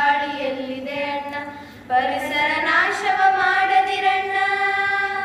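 Girls singing a Kannada song together, with a short break just before two seconds in, then one long held note.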